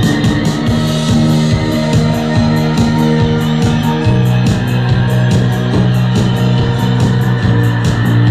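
Rock band playing live, guitar over drums keeping a steady beat.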